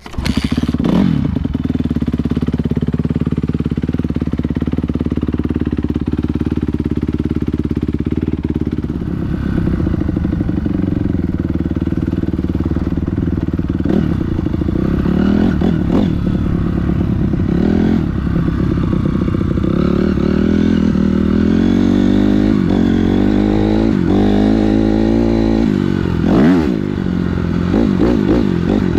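Motocross dirt bike engine running hard, its pitch repeatedly climbing and dropping as the rider revs and shifts through the gears, more often in the second half.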